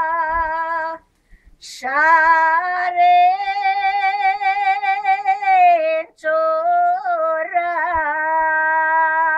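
Bulgarian village women singing a traditional folk song without instruments, in long held notes with a wide wobble in pitch and slides between notes. The singing breaks off briefly about a second in and again about six seconds in.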